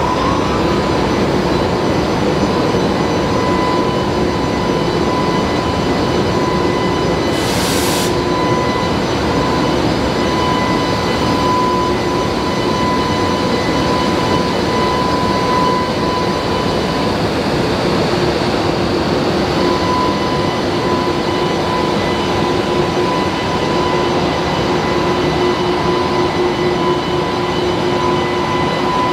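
Train at a station platform, running with a steady hum and a constant high whine. A short hiss comes about seven and a half seconds in.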